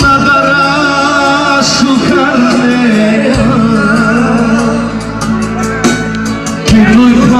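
Music with singing: a melody with long held, wavering notes over a steady instrumental backing.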